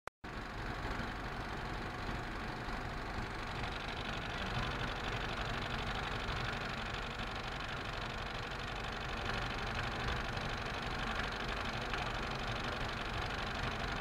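Film projector running steadily in the projection booth, an even mechanical noise.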